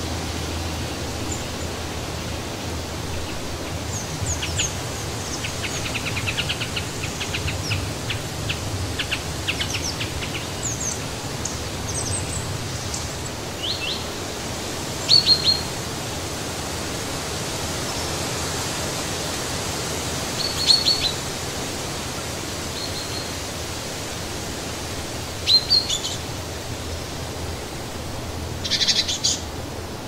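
Wind blowing through trees as a steady hiss, with several small birds calling: a quick run of clicking, ticking notes from about four to ten seconds in, then short separate chirps, the loudest ones about halfway through and near the end.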